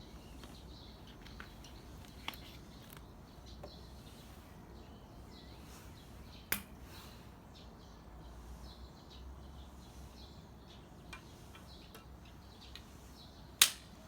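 Faint outdoor ambience with a low rumble and scattered small bird chirps, broken by sharp clicks: a loud one about six and a half seconds in and a louder one near the end.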